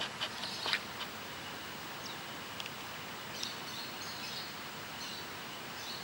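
Steady outdoor background hiss with a few short, high chirps of small animals. The chirps cluster in the first second and again around three and a half to four and a half seconds in.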